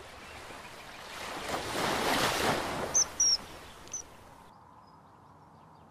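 Water washing, a rushing sound that swells and fades over about three seconds, with three short, high bird chirps as it dies away.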